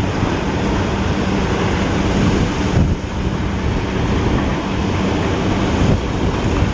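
Loud, steady rumble of sugar-factory machinery with a low, even hum underneath, dipping briefly about three seconds in.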